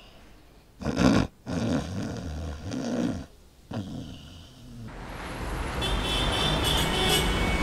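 A man snoring loudly, about three snores in the first five seconds. Then, about five seconds in, the noise of road traffic fades up, with a low engine rumble.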